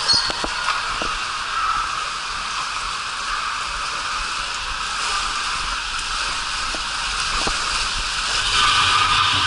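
A rider sliding down an enclosed plastic tube water slide: a steady rush of running water and sliding noise inside the tube, with a few light knocks, growing louder near the end.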